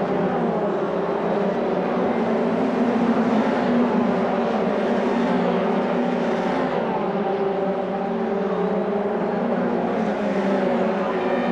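Formula Renault 2000 race cars' two-litre four-cylinder engines running on track. Several engine notes overlap, their pitches rising and falling as the cars speed up and slow down.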